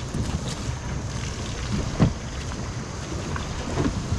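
Wind buffeting the microphone over sea water sloshing around a floating plastic cube pontoon dock, with a sharp knock about two seconds in and a softer one near the end.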